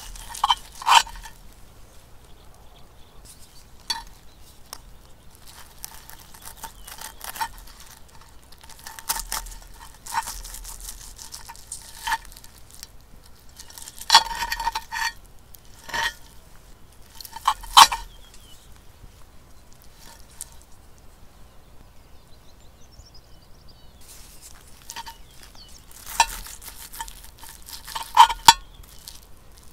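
Stainless steel knife and fork cutting chicken breast in a cast-iron pan: irregular clinks and short scrapes of metal on the pan, several with a brief ring, in clusters a few seconds apart.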